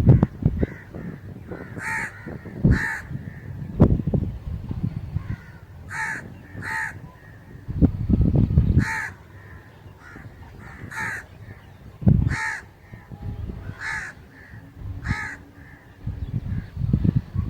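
A crow cawing repeatedly with short, harsh caws, often two in quick succession, every two or three seconds. A low rumbling noise rises and falls between the calls.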